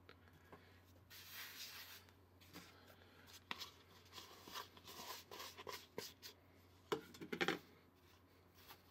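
Handling noises of cookie dough being worked with small plastic baking tools: soft rubbing and scraping with scattered clicks, and a few louder knocks near the end.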